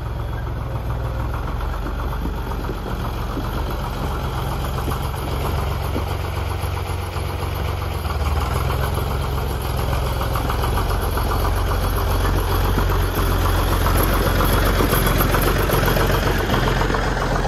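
Zetor 4718 tractor's three-cylinder diesel engine running at low revs as the tractor drives about. It grows louder from about halfway through as the tractor comes up close.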